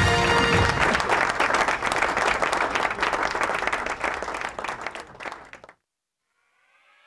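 Applause with a few held notes of the TV show's intro jingle at the start. It fades and cuts off about five and a half seconds in. After a second of silence, a faint rising synth sweep begins near the end, the lead-in to an electronic dance track.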